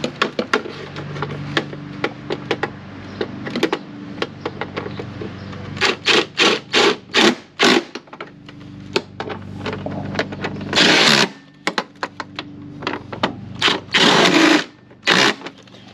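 Impact wrench run in short bursts: five quick bursts about six seconds in, then two longer runs near eleven and fourteen seconds, with small clicks and rattles between.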